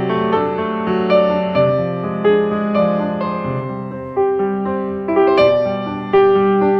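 Background piano music: a gentle melody of struck notes, each fading after it is played.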